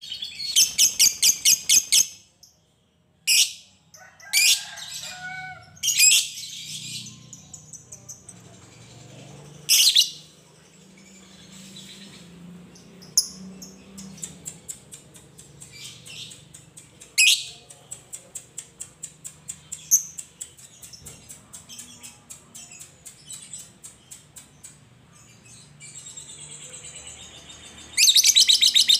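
Fischer's lovebird calling. A loud, fast chattering trill (the 'ngekek' that lovebird keepers prize) runs for about the first two seconds. Then come scattered sharp single chirps and runs of quieter quick ticking ('ngetik'), and another loud fast trill starts near the end.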